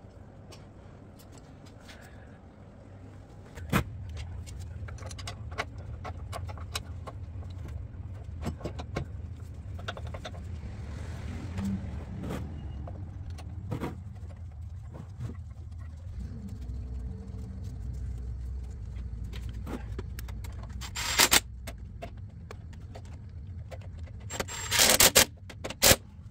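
Scattered metal clicks and knocks from work on a cast-iron surface grinder, over a steady low rumble. Near the end, short bursts from a cordless power driver fastening a part under the machine base, the loudest sounds.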